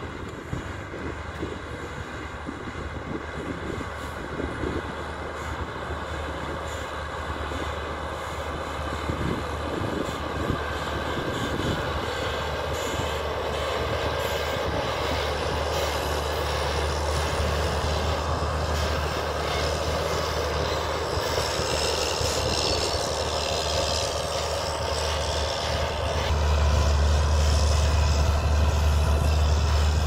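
Self-propelled crop sprayer's engine running steadily as it drives across the field spraying, growing gradually louder as it approaches, with a further jump in level near the end.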